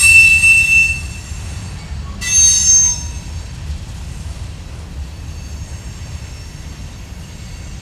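Freight car wheels squealing on curved track as a train of tank cars rolls past, over a steady low rumble. Two loud high-pitched squeals, the first lasting about a second from the start, the second about two seconds in, then fainter squealing near the end.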